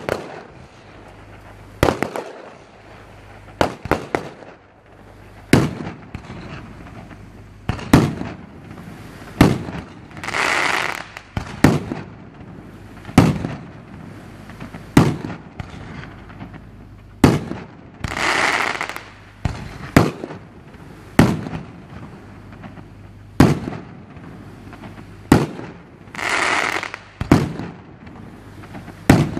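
Fireworks display: aerial shells bursting in sharp bangs every second or two, with three longer hissing stretches of about a second each.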